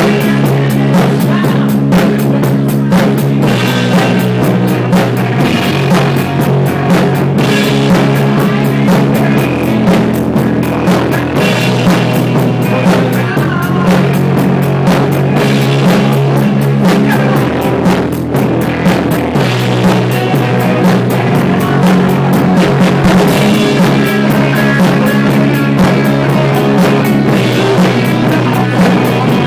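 Rock band playing live, loud: electric guitars and a drum kit keeping a steady, fast beat, over a low bass line that moves to a new note every few seconds.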